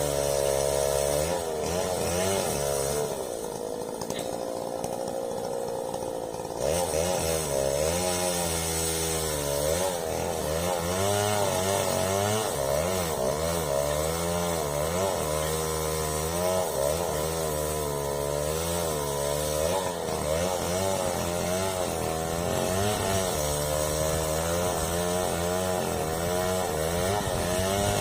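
Two-stroke chainsaw cutting a tree, its engine pitch rising and falling as the chain loads and frees in the wood. About three seconds in it eases back to a steadier, lower note, then revs back up to cutting speed at about six and a half seconds.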